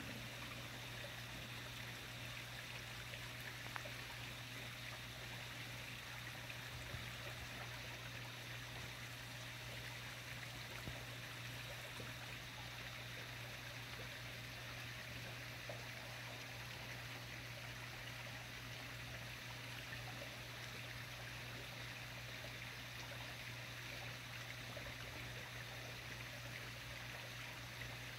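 Steady faint outdoor night background: an even hiss over a constant low hum, with a few soft ticks. No thunder is heard from the distant lightning.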